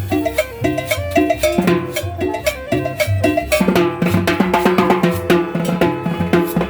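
Upbeat cumbia band music: a drum kit keeps a steady beat under bass and a bright, pitched melody line.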